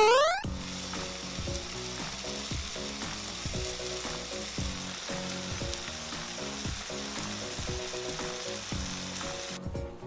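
Red corn cheese, corn and mozzarella in a gochujang-ketchup sauce, sizzling on a hot iron plate with a steady crackling hiss over light rhythmic background music. The sizzle stops just before the end. A short rising electronic glide sounds at the very start.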